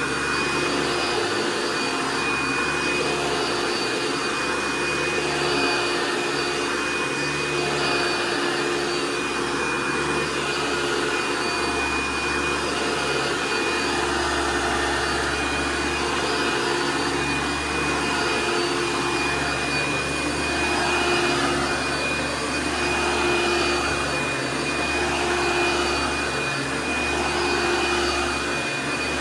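Hoover Runabout Ultra vacuum cleaner running continuously: a steady motor whine over the rush of air, the loudness swelling and dipping slightly as it is worked.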